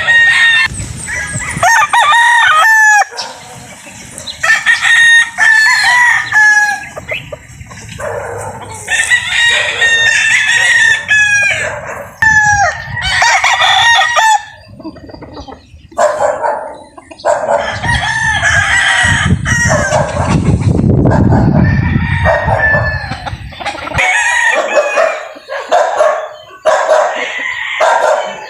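Several domestic roosters crowing one after another, their calls overlapping almost without a break.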